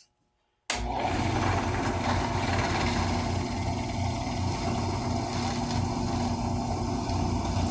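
Drill press motor running steadily, its bit boring into a mahogany guitar neck, with a constant hum and low rumble. It cuts in suddenly under a second in.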